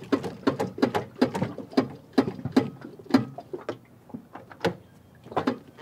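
Irregular metallic clicks and knocks, several a second, from hands working at a small Yamaha outboard motor on an inflatable dinghy.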